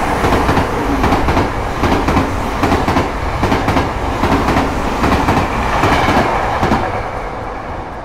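Passenger train running through a level crossing, its wheels clacking rhythmically over the rail joints, the noise dying away near the end as it passes.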